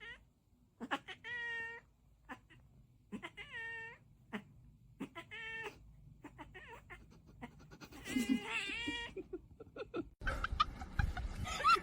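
A cat meowing: three drawn-out meows about two seconds apart, then more meowing near the end.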